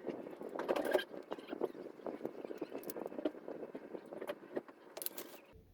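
Rapid small clicks, taps and light scraping of a smartphone's plastic and metal internal parts being handled and pressed into place in the phone's frame by hand.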